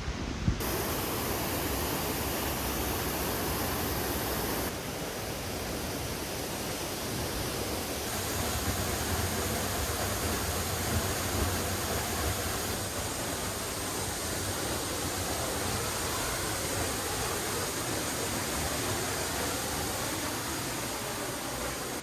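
Steady roar of rushing water, made of several clips cut together, with the tone shifting suddenly at each cut.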